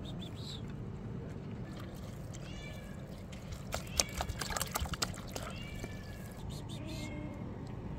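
Cats meowing several times with short high meows, while water from a plastic bottle glugs and splashes into a plastic tub for a second or two about four seconds in.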